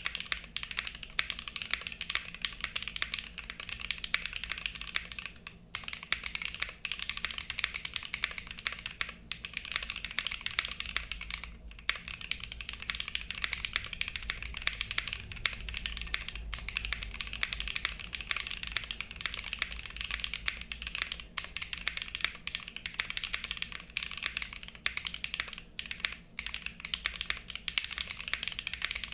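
Fast continuous typing on a mechanical keyboard with YOK Red Panda tactile switches, their springs bag-lubed with GPL 104 and the rest of each switch lubed with Tribosys 3204. Dense rapid keystroke clicks, broken by short pauses about six and twelve seconds in.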